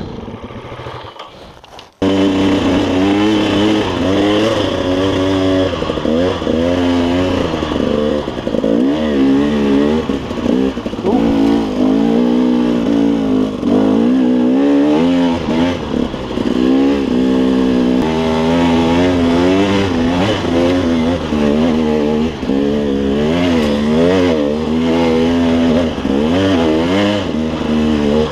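KTM 300 two-stroke dirt bike engine revving on trail, its pitch rising and falling constantly as the throttle is worked. It comes in suddenly about two seconds in, after a short quieter stretch.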